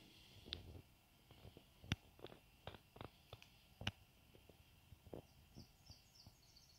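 Faint, sparse crackles and pops from a small wood fire burning in a camp stove. A bird twitters faintly near the end.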